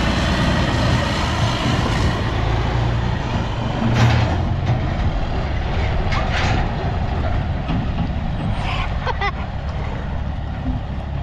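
Diesel engine of a 2004 Freightliner Columbia day cab running steadily as the truck pulls away towing a tandem-axle flatbed trailer, with a short loud burst of noise about four seconds in.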